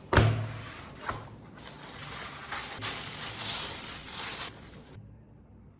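Product packaging being handled and opened: a sharp knock at the start, then rustling, crinkling and scraping of box and wrapping that stops about five seconds in.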